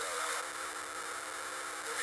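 5.25-inch floppy drive spinning a disk, a steady hissing whirr with a faint hum.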